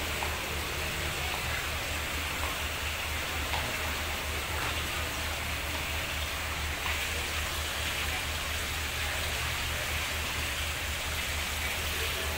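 Steady low hum and even hiss of an idling diesel locomotive, with no breaks or separate impacts.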